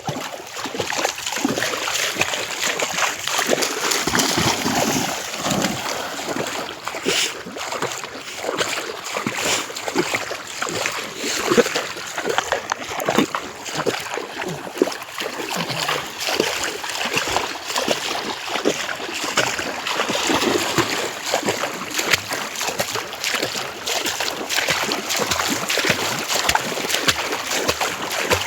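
Continuous splashing and sloshing of shallow canal water, many small splashes overlapping, as a crowd of people wade and fish through it.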